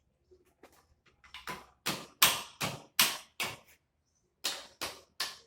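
Repeated hammer blows on metal, about ten sharp strikes in two runs with a pause between, working a stuck piece of iron out of a motorcycle's exhaust muffler.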